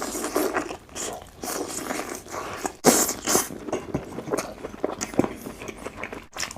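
Close-miked eating sounds: a person biting and chewing food with wet, irregular smacking clicks, a louder bite about three seconds in.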